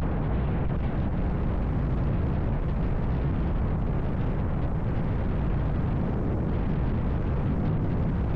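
Heavy, steady wind rush buffeting the microphone of a camera on a Vitacci XMT 250 motorcycle riding at about 50 mph, with the bike's engine and tyre noise under it.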